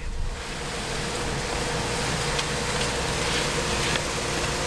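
Heavy diesel engine of a concrete mixer truck running steadily, a low rumble with a constant hum.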